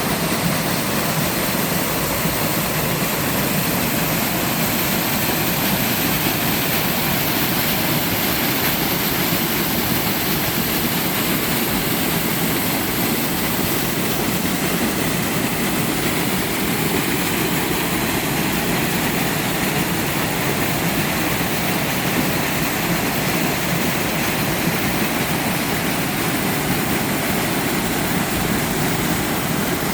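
Small waterfall in a mountain stream: water pouring and splashing steadily into a pool, an unbroken rushing hiss.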